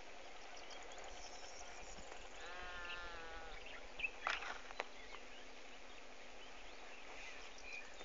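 A faint animal call, once, lasting under a second about two and a half seconds in, over a low steady outdoor background, followed by a couple of short knocks a little after four seconds.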